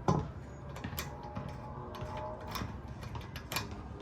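Lug nuts being fitted back onto a car wheel: irregular metallic clicks and ticks, with a louder knock right at the start.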